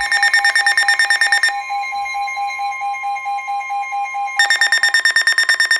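Emergency alert tones: a high beep pulsing about ten times a second for a second and a half, then a steady lower tone, then the fast pulsing beep again.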